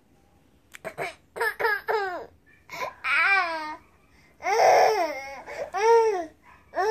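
A toddler boy's high-pitched laughing and squealing, starting about a second in as a few short bursts, then longer cries that rise and fall in pitch.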